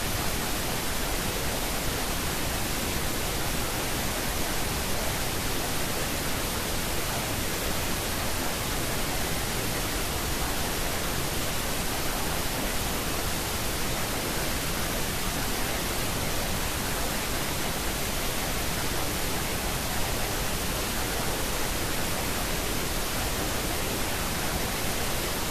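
Steady hiss of synthetic noise, even from low to high and unchanging throughout. It is the masking noise track of a subliminal recording, under which the affirmations are meant to be hidden.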